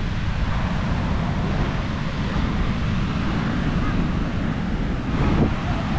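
Strong sea wind buffeting the microphone over ocean surf washing onto a sand beach.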